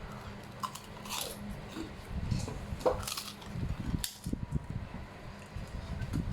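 Someone eating: chewing and mouth smacks, with light clinks of cutlery against a plate, over a faint steady hum.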